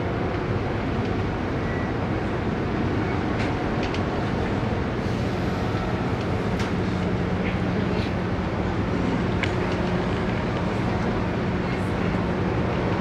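Steady low hum and rushing noise of a cruise ship's engines and machinery, with a few faint ticks.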